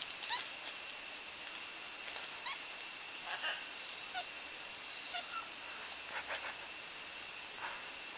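Steady high-pitched drone of forest insects, with short chirping animal calls scattered over it several times.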